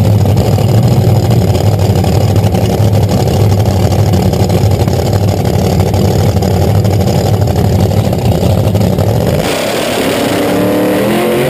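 Drag race cars' big engines rumbling loudly at the starting line. About nine and a half seconds in, the low rumble drops away and a higher engine note climbs as a car accelerates off down the strip.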